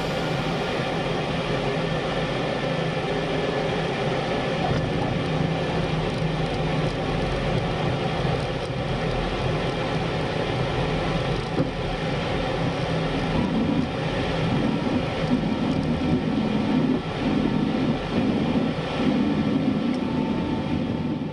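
Aero L-39 Albatros's single Ivchenko AI-25TL turbofan running with a steady whine, heard from inside the cockpit as the jet rolls along the runway.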